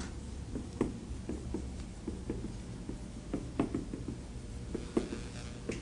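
Handwriting on a board in a small room: irregular light taps and short strokes of the writing tool.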